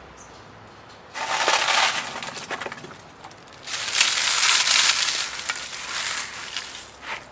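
Dry leaves crackling as gloved hands crush and press them down into a terracotta compost pot. It comes in two bouts: a short one about a second in, and a longer one from about four seconds in.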